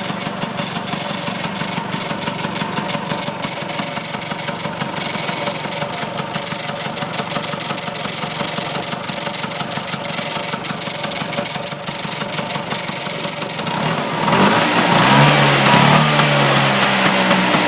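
Vespa GL 150 single-cylinder two-stroke engine running hot, with a continuous metallic jingling over the run of dense rapid ticks. About fourteen seconds in it is revved up, getting louder with a wavering, rising note.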